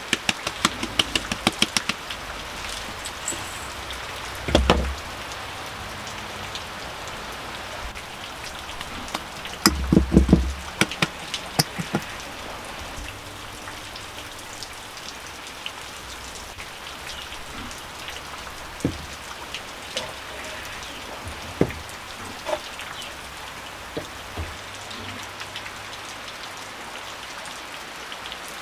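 Steady rain falling on a corrugated roof, with scattered drips and a few louder knocks, the loudest cluster about ten seconds in. In the first two seconds a wooden-rimmed flour sieve knocks rapidly, several times a second, as it is shaken over the bowl.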